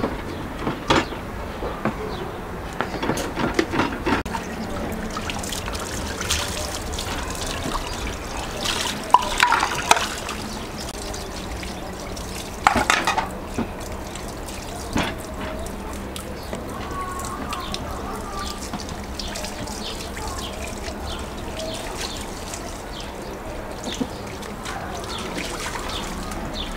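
Minced meat with chopped onion being chopped with a large knife on a wooden board and worked by hand: wet squelching with scattered knocks of the blade, a few louder than the rest.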